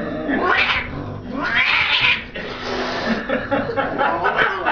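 Domestic cat yowling: two long drawn-out cries in the first two seconds or so, then lower, broken yowling. This is the defensive caterwaul of a cat cornered by a stuffed toy tiger.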